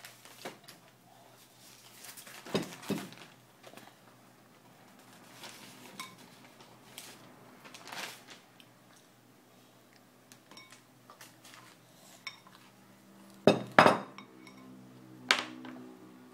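A glazed ceramic bowl knocking and clinking as a toddler handles it and sets it on a wooden table, with scattered light knocks throughout. The loudest come near the end: two knocks close together and a third about a second and a half later, each ringing briefly.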